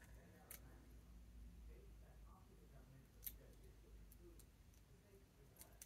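Near silence, broken by a few faint clicks of plastic Lego bricks being handled and fitted together.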